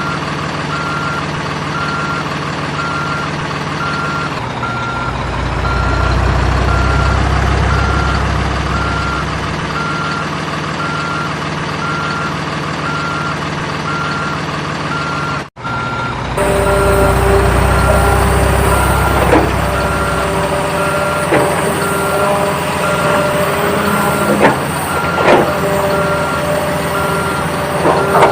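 An RC toy construction vehicle's sound module plays a steady, evenly repeating reversing beep over a simulated engine rumble that swells twice. After a brief dropout halfway, short electronic tones and scattered small clicks and knocks join the beeping.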